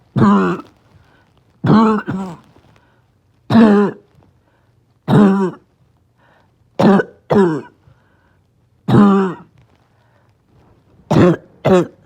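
A person's barking cough: about ten harsh coughs, some in quick pairs, coming every second or two, each dropping in pitch.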